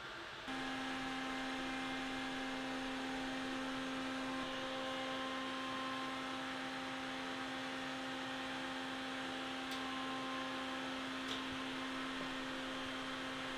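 A steady electrical hum with a few overtones, starting about half a second in and holding level. Two faint light clicks come near the end.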